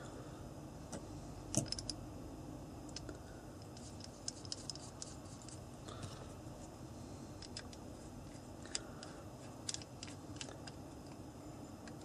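Light metallic clicks and scrapes as a cheese nut is handled and fitted by hand into the metal base plate of an adjustable rifle butt pad, irregular and scattered, the sharpest about a second and a half in.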